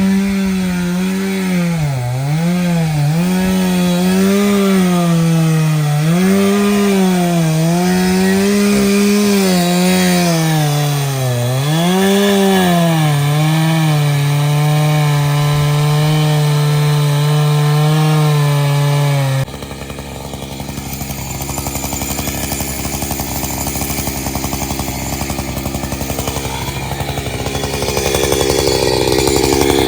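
Chainsaw running as it cuts wood, the engine pitch dipping and recovering again and again under load. About two-thirds of the way in, the sound changes abruptly to a quieter, lower, steadier running that swells again near the end.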